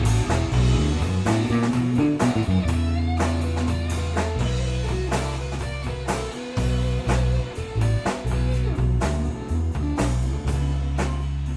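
Four-piece rock band playing live: two guitars over bass guitar and drum kit, with strong sustained bass notes and steady drum hits.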